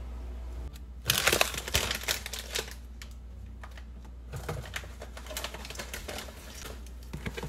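Snack packaging handled: a Takis chip bag crinkling and rustling, with a dense burst of crackling about a second in and softer scattered rustles later.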